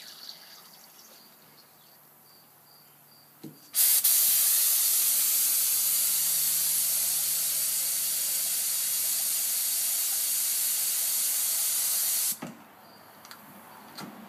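Compressed air hissing steadily through a gravity-feed spray gun with the trigger held and the nozzle loosened, back-flushing isopropyl alcohol to clean the inside valve assembly. The hiss starts about four seconds in and cuts off suddenly about twelve seconds in.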